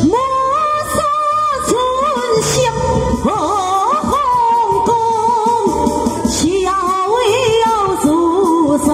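Taiwanese opera (koa-á-hì) aria: one voice sings through a microphone over an instrumental accompaniment. It enters at the start on a rising glide to a held high note, then carries on in a long, wavering, ornamented line.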